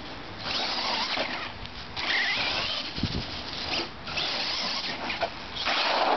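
RC truck's motor whining in several short bursts of throttle, one rising in pitch about two seconds in, as the truck is punched for wheelies.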